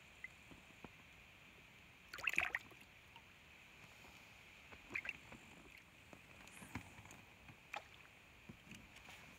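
Small lake waves lapping against the hull of a small boat, with a brief cluster of splashes and knocks about two seconds in and a few lighter ones later, over a faint steady high hiss.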